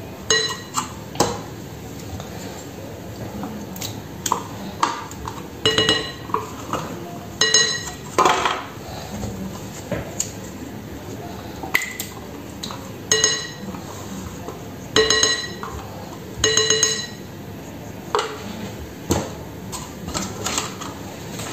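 A utensil knocking and scraping against a glass mixing bowl while plain yogurt is scraped out of plastic pots into it: a dozen or so short ringing clinks, a second or two apart, with soft scraping between.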